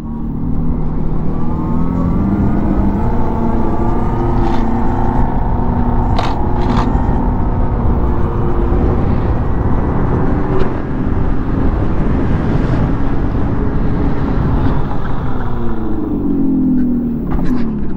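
Revolt RV400 electric motorcycle ridden through the turns with its speaker playing the simulated superbike engine sound, which rises in pitch as it speeds up in the first couple of seconds and falls as it slows about three seconds before the end. Heavy wind noise on the microphone throughout.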